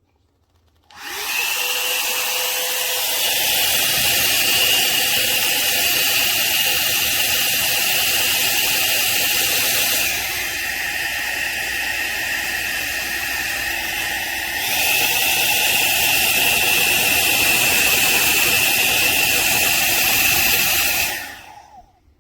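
Small foldable hair dryer switched on, its fan running with a steady high motor whine. About ten seconds in it drops to a lower, softer setting for several seconds, then goes back up before it is switched off shortly before the end.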